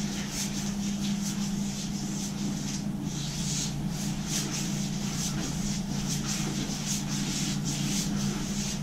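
Chip brush stroking paint onto a drywall patch: short scratchy brushing strokes, a couple a second, over a steady low hum.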